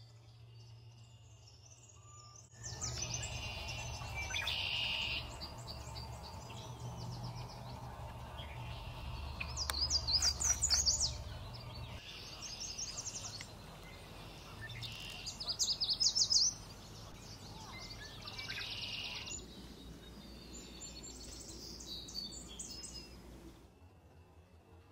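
Several songbirds singing, among them a yellow warbler giving quick, high song phrases, loudest about ten and sixteen seconds in, over a steady low rumble. The birdsong cuts in suddenly about two and a half seconds in and drops away shortly before the end.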